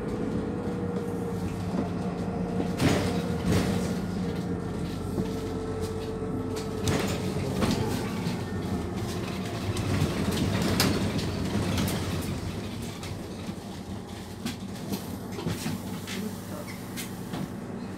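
Inside a Van Hool NewA309 city bus under way: its MAN D0836 six-cylinder diesel and ZF automatic gearbox run with a steady drone, while the body gives off several sharp knocks and rattles. The drive gets quieter about two-thirds through.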